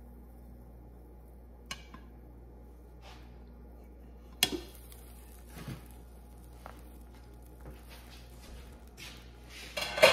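Clinks and knocks of a glass pan lid and a nonstick fry pan: a sharp clink about four seconds in as the lid comes off, a few lighter knocks after it, and a louder clatter near the end. From the lid's removal on, a faint high hiss of an egg sizzling in the pan.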